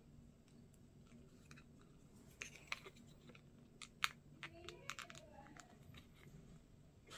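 Faint scattered clicks and light handling noise of small toy figure parts and a paper card being fitted and pressed together by fingers, the sharpest click about four seconds in.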